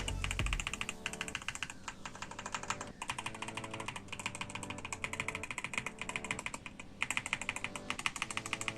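Fast typing on a YUNZII AL65 65% aluminium mechanical keyboard: a dense, continuous stream of key clicks that grows louder and denser near the end.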